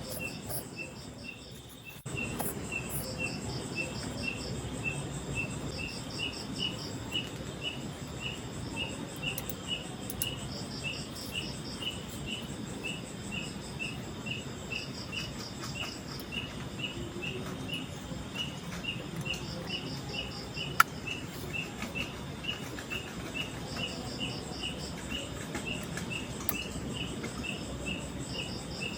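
Insects calling in the forest: one gives short even chirps about twice a second, and another adds brief pulsed trills every few seconds, over a steady low rushing noise. A single sharp click sounds about 21 seconds in.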